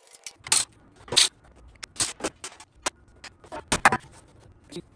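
Irregular sharp clicks and knocks of metal tools and transmission parts being handled, about ten in quick succession. The loudest come about a second in and near four seconds.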